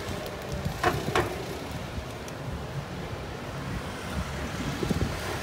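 Street traffic: a steady low rumble of passing vehicles, with two short sharp sounds about a second in.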